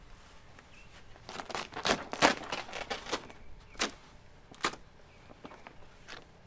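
Large sheet of hollow chrome vinyl wrap film crinkling and crackling as it is handled and stretched over a boat hull. A burst of crackles comes in the middle, then two single crackles.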